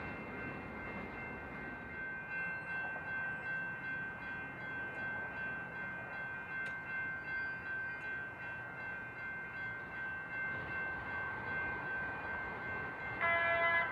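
Railroad grade-crossing bell ringing in an even pulse, about one and a half strokes a second. A train's multi-note horn blasts near the end.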